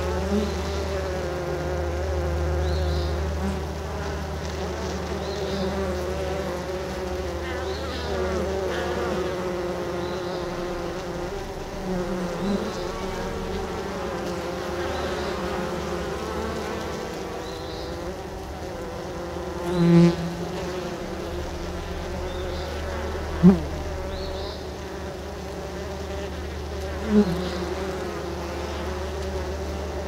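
Honey bees buzzing at the hive entrance: a steady, wavering hum of many wingbeats. Three times in the second half, a single bee's buzz swells louder for a moment, as if it flies close past the microphone.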